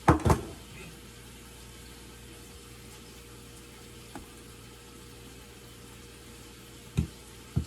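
A serving utensil knocks and scrapes against a dish at the start while crab meat topping is spooned out, with a faint click midway and two more short knocks near the end. A steady low hum runs underneath.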